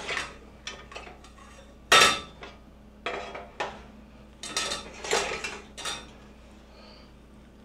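Cookware clanking and rattling on a gas stove's grates as a red Dutch oven and a steel saucepan holding a mesh strainer are moved about. There is one sharp clank about two seconds in, then a run of knocks and rattles from about three to six seconds in.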